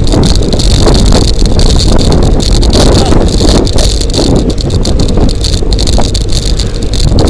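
Bicycle riding at speed: wind rumbling on the microphone, with continual small rattles and clicks from the bike.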